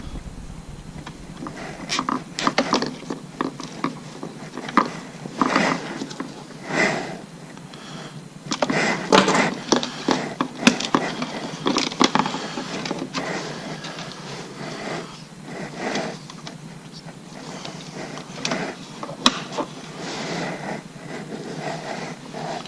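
Irregular swishing and rustling of a jacket rubbing against a chest-mounted microphone while hands work a thin wire and plastic parts inside a generator housing, with a few small sharp clicks.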